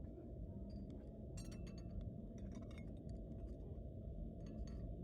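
Faint scattered light clinks and ticks over a low steady rumble.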